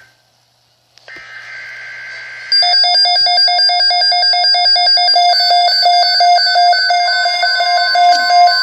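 NOAA Weather Radio EAS alert: about a second in, a short burst of the SAME digital header's screeching data tones, then weather alert radios set off into loud, rapid pulsing beeps. The steady 1050 Hz warning alarm tone joins in over the last second and a half.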